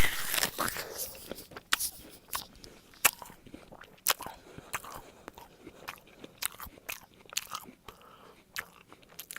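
Chewing a juicy Golden Delicious apple: a loud crunching bite right at the start, then crunchy chewing with many sharp, irregular wet clicks.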